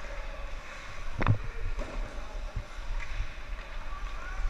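Ice hockey rink sound from a skating wearer's body-mounted camera: skates scraping the ice over a steady low rush of wind on the microphone, with one sharp knock a little over a second in.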